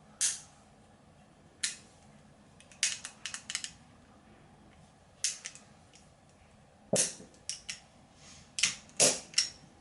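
Sharp metallic clicks of a 1911 pistol's action being worked by hand, about a dozen at uneven intervals: the hammer cocked and dropped and the trigger and thumb safety tried as a function check after assembly.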